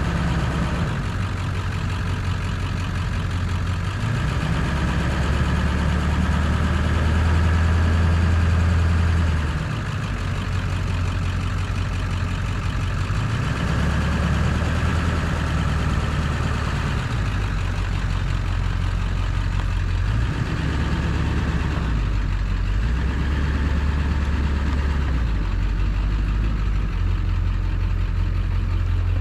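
A heavy vehicle's engine running steadily while moving a load, its pitch stepping up and down several times as the revs change.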